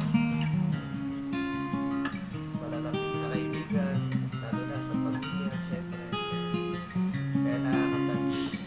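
Background music led by guitar, with a line of low held notes under higher picked notes.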